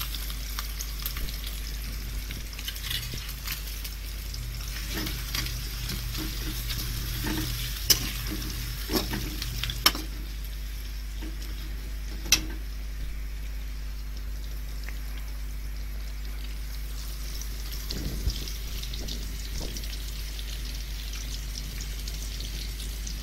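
Sliced onions sizzling steadily in plenty of hot oil in a metal kadai, frying on their way to golden. They are stirred with a slotted metal spoon that clinks sharply against the pan a few times.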